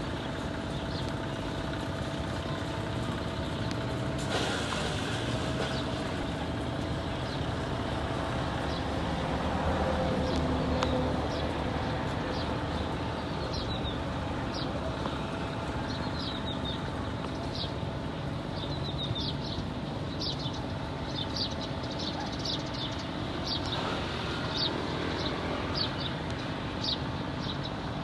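Steady outdoor rumble of motor vehicles, with many short, high bird chirps joining from about halfway through and continuing to the end.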